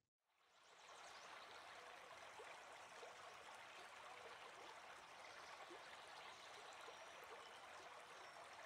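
Faint, steady rush of a flowing stream, fading in within the first second.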